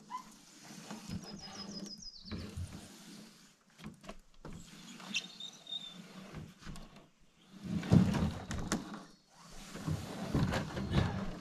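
A canoe hull scraping, sliding and knocking over floating logs as it is hauled through, with water sloshing around it. The loudest scrapes come about eight seconds in and again near the end.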